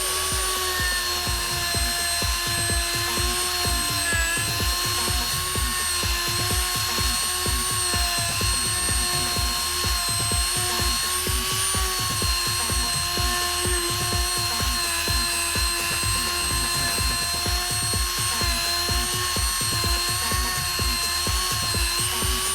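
A small electric power tool runs steadily, its pitch wavering slightly as if under varying load, over music with a steady beat.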